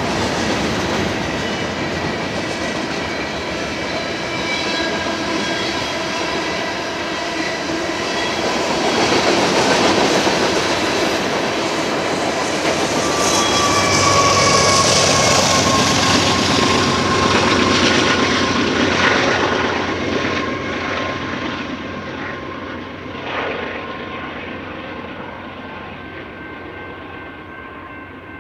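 Freight train rolling past: steady rumble of rail cars, with a whining tone that falls in pitch around the middle as it goes by. The sound then fades and grows duller as the train moves away.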